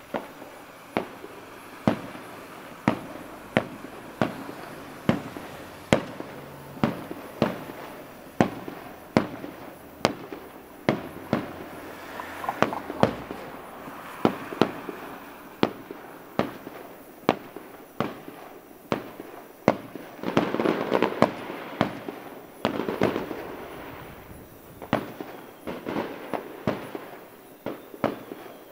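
Aerial firework shells bursting in a steady run of sharp bangs, about one a second, with crackle between them. About two-thirds of the way in a louder, denser rush of crackle swells for a few seconds.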